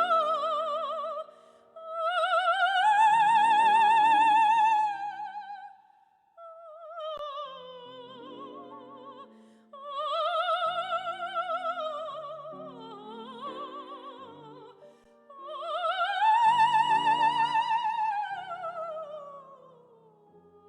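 A high operatic voice singing a Russian romance with wide vibrato, over piano accompaniment. It sings in long held phrases with brief breath pauses, swelling loudest twice and trailing off near the end.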